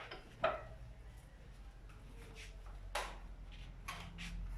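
A few short, soft clicks and knocks, the clearest about half a second in and again about three seconds in, over a faint low hum.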